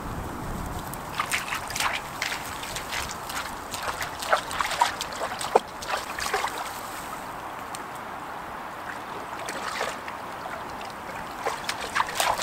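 Small stream trickling and burbling, with irregular little plinks and splashes of water.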